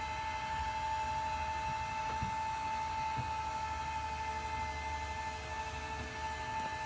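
Electric lift motor of a toy hauler's power chair-and-bed lift running steadily, raising the chairs on their lift arms: a constant whine over a low hum.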